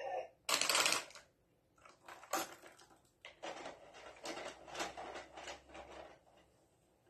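Plastic parts of a VTech Toot-Toot Drivers garage playset clattering as toy cars and the lift tower are handled: one loud rattle about half a second in, then a string of irregular plastic clicks and knocks over the next few seconds.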